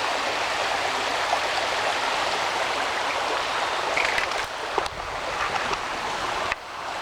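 Small mountain creek rushing steadily, a continuous hiss of running water, with a few faint ticks about four to five seconds in and a sudden drop in loudness near the end.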